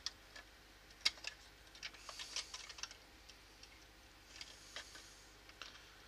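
Light clicks and short scraping of small plastic and metal parts being handled and fitted together during reassembly of an air ionizer, with a sharp click about a second in.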